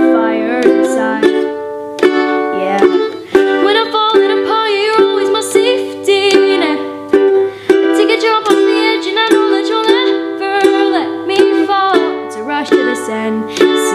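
Acoustic ukulele strummed in a steady rhythm through the song's chords (G, E minor, D, C), with a girl's voice singing along.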